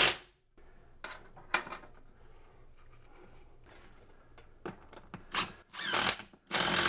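DeWalt cordless drill with a 7/16 socket driving lag screws through a steel mounting plate into a wall stud: a burst of driving that stops just after the start, a few faint clicks, then short bursts of driving near the end.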